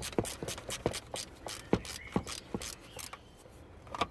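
Quarter-inch ratchet clicking in quick strokes, about six clicks a second, as it works loose a stubborn thermostat housing bolt. The clicking thins out and fades about three seconds in.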